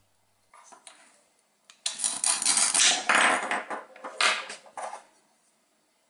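Hook-and-loop (velcro) fastener tearing as the two halves of a wooden toy lemon come apart. A few light clicks come first, then a rasping rip lasting about three seconds, with a brief break before a last shorter tear.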